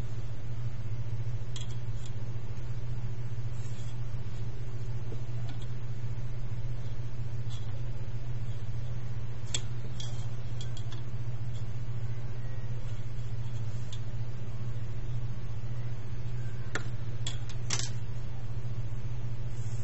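A steady low hum, with a few faint clicks and taps from a metal ruler and marker being handled on paper, several of them close together near the end.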